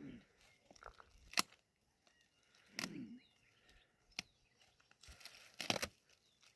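Scattered handling noises: a few sharp clicks and short bursts of rustling and crinkling, with a brief low sound about three seconds in.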